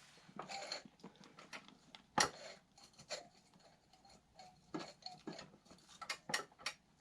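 Scattered light clicks and knocks of hand tools and metal parts being handled while working on a small motorcycle, several in quick succession near the end.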